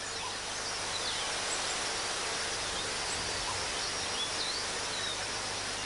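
Outdoor forest ambience: a steady, even hiss with a few faint, brief high bird chirps scattered through it.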